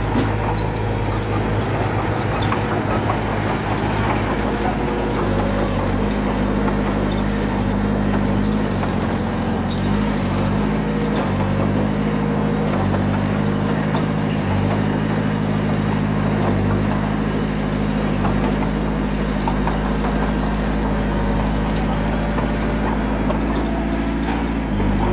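Small bulldozer's diesel engine running steadily under load while pushing wet soil, its pitch shifting slightly now and then, with a few faint metallic clicks.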